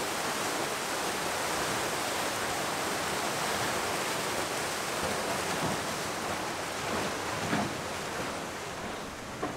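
Water rushing steadily down through an Archimedes screw turbine as the screw turns, with a couple of brief soft knocks in the second half and the rush easing a little near the end.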